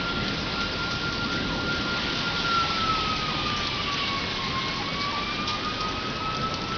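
Steady rain falling, with a siren sounding one steady high tone that sags lower about four seconds in and then climbs back.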